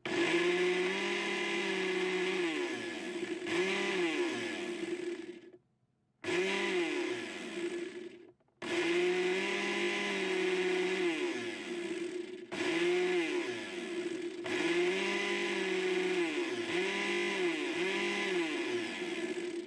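Bosch blender motor running under test after its speed selector switch was repaired. It repeatedly speeds up and slows down, its pitch rising and falling, and cuts out completely twice before starting again.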